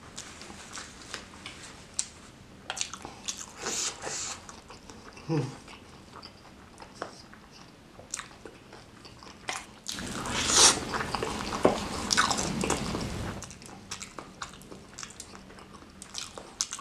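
Close-up mouth sounds of a person chewing spicy fried noodles and fried chicken, with scattered wet smacks and clicks. About ten seconds in there is a louder noisy stretch lasting some three seconds.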